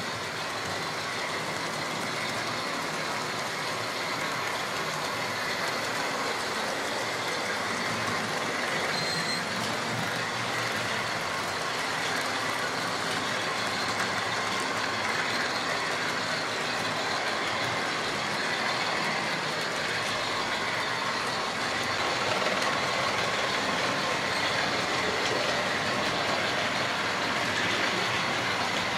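Several model railway locomotives running at once: a steady whirr of their electric motors and a rattle of wheels over the track, getting slightly louder near the end.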